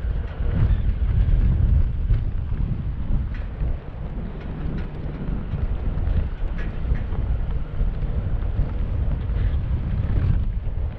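Wind buffeting the microphone in a snowstorm: a loud, uneven low rumble that gusts up and down.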